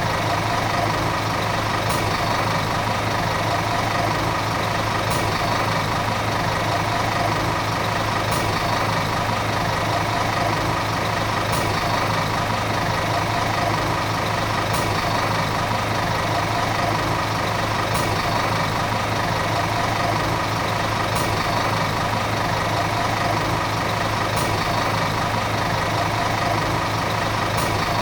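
Volvo city bus diesel engine idling steadily, a low even drone with no revving. A faint click recurs about every three seconds.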